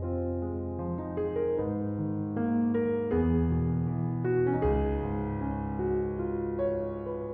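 Background music: soft piano playing a slow run of notes and chords.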